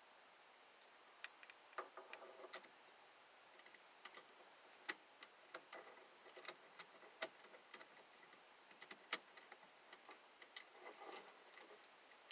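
Faint, irregular clicks and light metallic rattles of a steering wheel hub adapter and quick release being handled and fitted, with small rattly clusters about two seconds in and near the end.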